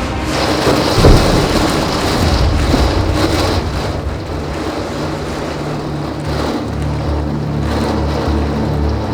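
A sudden thunderclap about a second in, rumbling on under steady heavy rain.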